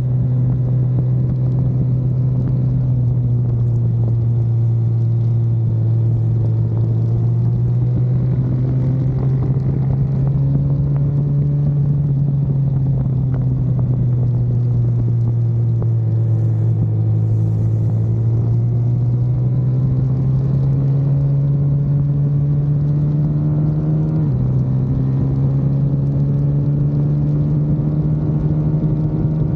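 Car engine running continuously under way, its pitch slowly rising and falling with speed and stepping abruptly once near the end.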